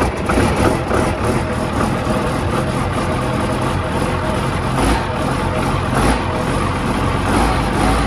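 Case IH tractor's diesel engine idling steadily, heard close to its upright exhaust stack.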